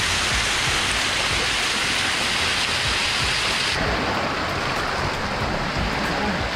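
Steady rush of running water. About two-thirds of the way through it changes abruptly to a duller, less hissy rush.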